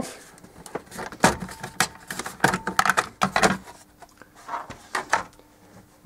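Plastic dash trim panel around a first-generation Ford Focus headlight switch being lifted off: a run of sharp clicks and knocks as the panel is worked free, with a few more near the end.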